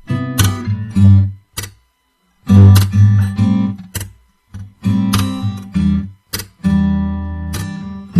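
Acoustic guitar strumming chords in short phrases, with brief stops between them.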